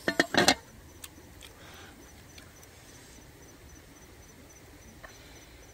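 Cooked curried chicken being torn apart by hand: a quick run of wet, sticky crackles and tearing in the first half-second, then a few faint clicks as the fingers pick through the pieces.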